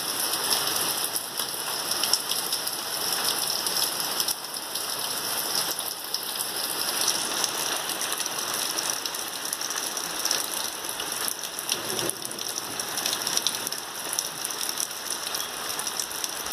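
Heavy rain falling steadily: a dense, even patter of many drops.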